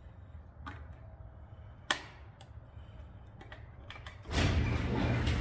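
A few light clicks and taps of handling, one sharper click near the middle, then a little over four seconds in a garage door opener starts and the door begins moving, a loud steady mechanical running.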